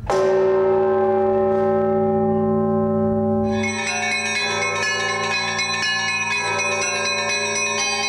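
Orthodox church bells rung by hand with ropes: a large bell is struck once and rings on with a deep hum. From about three and a half seconds in, many smaller bells join in a fast, dense peal over it.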